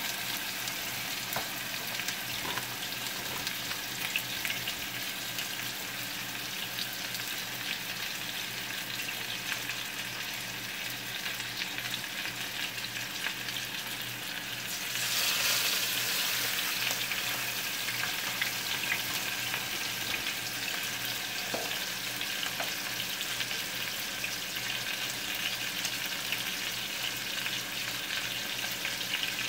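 Steaks searing in a hot frying pan, a steady sizzle. About fifteen seconds in the sizzle gets louder as another steak is laid into the pan.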